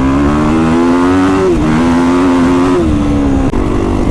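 Kawasaki KX450X single-cylinder four-stroke dirt bike engine running loud through an FMF 4.1 RCT exhaust under throttle. Its pitch climbs, drops sharply about a second and a half in, holds, then drops again near three seconds.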